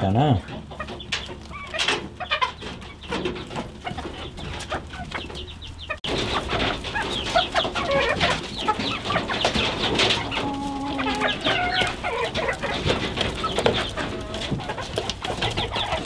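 A flock of chickens clucking, many birds calling over one another. It becomes louder and busier abruptly about six seconds in.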